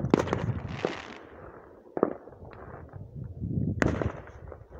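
Fireworks going off: a quick cluster of sharp bangs with crackling, then single louder bangs about two seconds in and again near four seconds.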